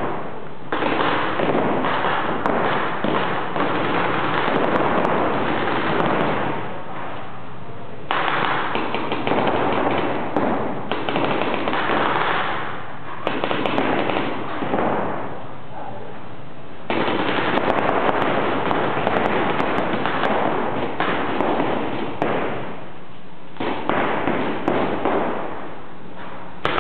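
Paintball markers firing in long rapid volleys, many shots a second, with short pauses between volleys.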